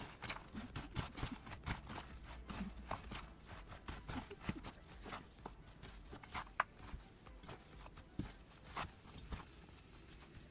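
Metal spoon stirring a stiff mix of broken biscuits, walnuts and chocolate in an enamel bowl: faint, irregular clicks, knocks and scrapes of the spoon against the bowl and the crumbs.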